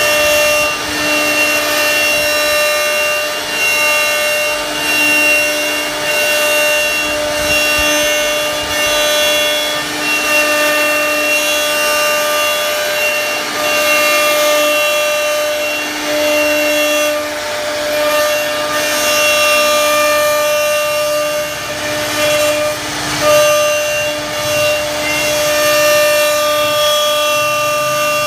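CNC router spindle running with a steady whine while the bit cuts wood, with a rasping cutting noise underneath. The whine drops out briefly a couple of times.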